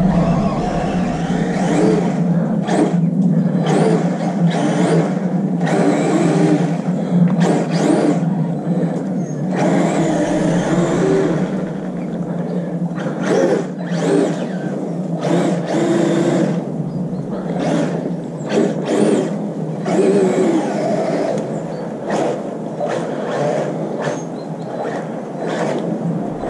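Electric RC monster truck driven in snow, its motor whining in short throttle bursts about every half second to a second, over a steady low hum.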